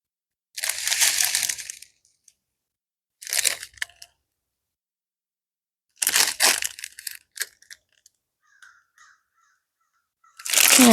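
Diamond painting kit packaging being handled, crinkling and rustling in about five short bursts: about half a second in, again a few seconds later, twice around six to seven and a half seconds in, and once more near the end.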